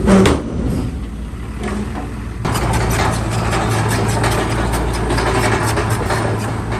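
Heavy diesel earthmoving machine engine running, with a short loud knock right at the start. About two and a half seconds in the sound jumps abruptly louder, to a steady engine hum with a rattling clatter over it.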